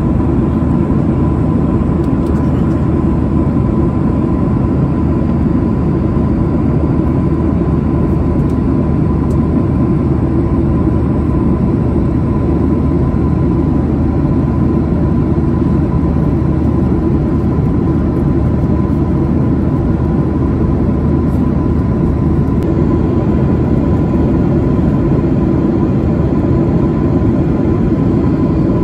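Cabin noise of a Boeing 737-900 in cruise, heard by a window seat: the steady, deep rush of the CFM56-7B turbofans and the airflow over the fuselage, with a thin steady whine on top.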